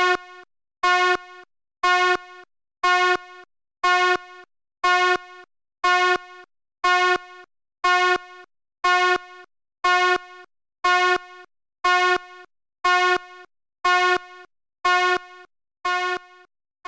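Fire alarm horn sounding in a steady pattern of buzzy blasts, about one a second, each blast dropping to a softer tone before a short gap.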